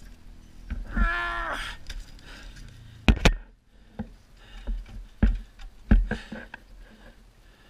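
A short groaning voice about a second in, followed by a string of sharp knocks and clunks, two loud ones close together about three seconds in, then more every half second or so.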